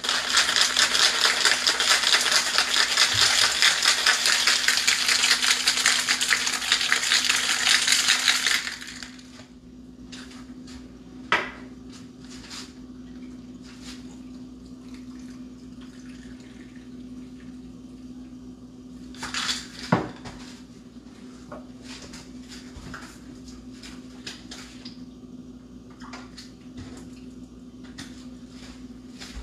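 Ice rattling fast and hard inside a stainless steel cocktail shaker being shaken, stopping after about eight seconds. Afterwards come a few sharp knocks and faint clinks, the loudest about twenty seconds in, over a steady low hum.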